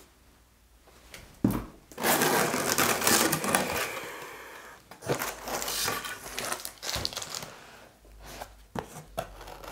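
Packing material rustling and crinkling as it is pulled out of a cardboard shipping box, loudest a couple of seconds in, after a single knock about one and a half seconds in.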